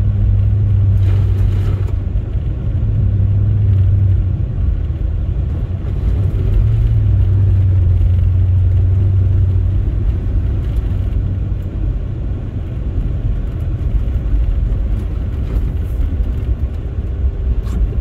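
Cabin sound of a Chrysler 300C's Hemi V8 on the move: a steady low engine drone over continuous road rumble as the tires run through packed, plowed snow.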